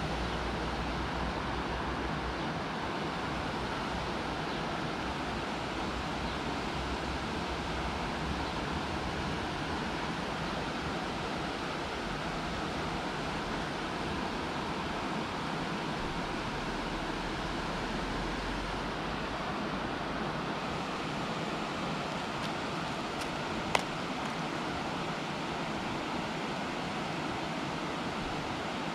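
Steady rushing of river water, even and unbroken, with one sharp click late on.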